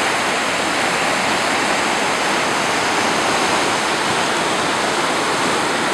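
Mississippi River floodwater pouring through the open bays of a flood-control spillway and churning below it: a steady, loud rushing of turbulent water.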